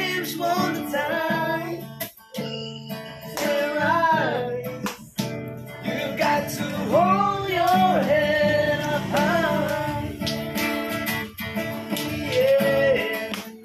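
A man singing a song while strumming chords on an acoustic guitar.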